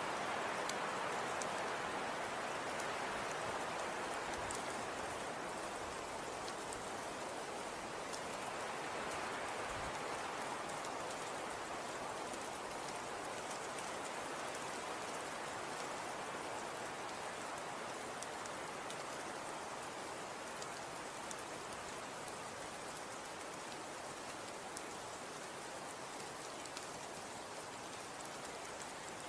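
Falling snow pattering steadily on surfaces: an even hiss with fine scattered ticks, slowly growing a little quieter.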